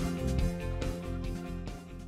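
Background music with a steady beat, played as a segment transition.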